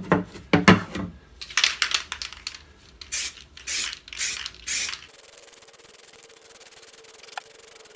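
Aerosol can of grey primer spraying a light dusting coat onto filled fiberglass bodywork: several short hissing bursts, then a longer steady spray from about five seconds in.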